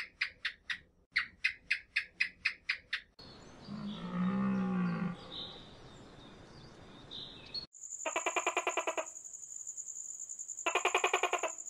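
A sequence of separate animal calls: a run of short chirps, about four a second, for the first three seconds; a single low drawn call, cattle-like, around the four-second mark; then fast pulsed trills over a steady high whine in the second half.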